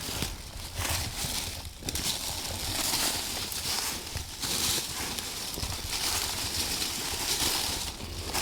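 Footsteps crunching and rustling through dry leaves and brush in an irregular walking rhythm.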